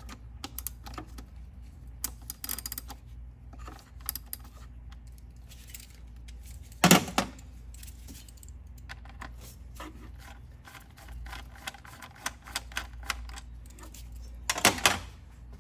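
Hand tools and metal engine parts clinking and clicking irregularly while working in an engine bay, with two louder knocks, one about seven seconds in and one near the end.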